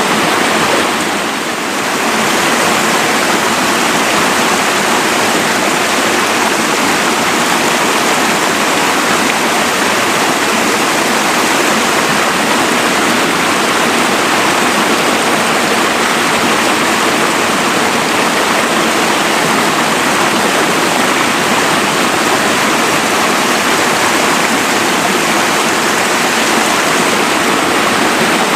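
Mountain waterfall rushing steadily, an even roar of falling water, briefly dipping in loudness about a second in.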